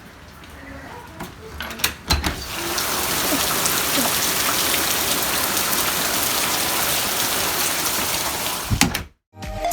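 Rain falling steadily, a loud even hiss that starts about two seconds in after a few clicks and knocks, and cuts off abruptly near the end.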